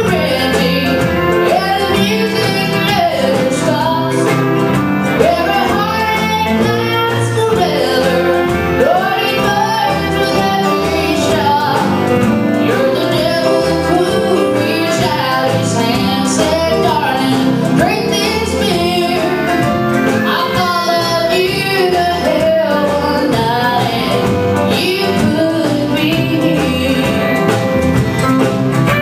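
A woman singing a country song live with a band: electric guitar and drums behind her voice.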